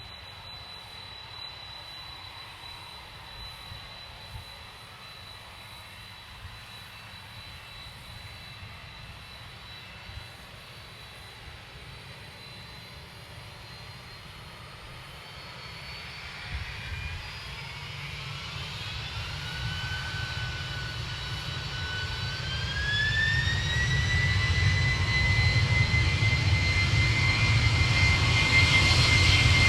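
Boeing 767's General Electric CF6 turbofans whining steadily at low power, then spooling up for takeoff from about halfway: a rising whine that climbs in steps while the engine noise grows steadily louder toward the end.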